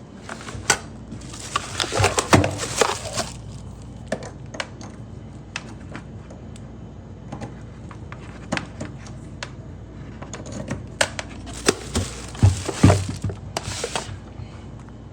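Objects being handled: scattered sharp clicks and knocks, with two bursts of crinkling and rustling about two seconds in and near the end, over a steady low hum.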